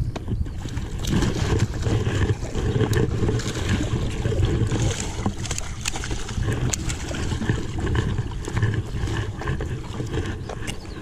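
A hooked black bass splashing at the surface just below a concrete bank as it is played in, over steady low rumbling noise with many small clicks and splashes.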